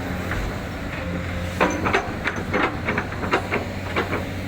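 Backhoe loader's diesel engine running steadily, joined about one and a half seconds in by a rapid run of sharp knocks and clatters that lasts a couple of seconds.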